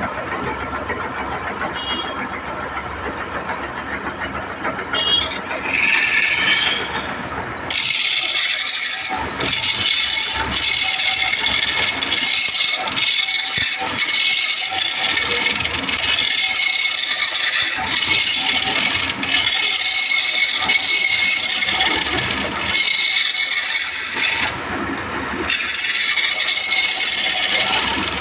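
Steady machine noise, then from about eight seconds a louder, high-pitched rasping rattle that pulses in a repeating pattern.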